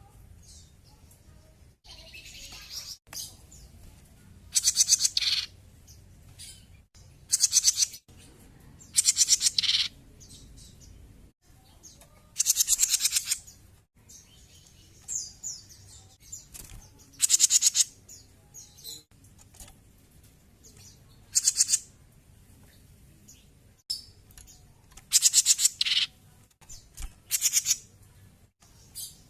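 A cucak jenggot bulbul singing in loud, high-pitched bursts, each about a second of rapid trilled notes, repeated every two to four seconds, with softer chirps between them.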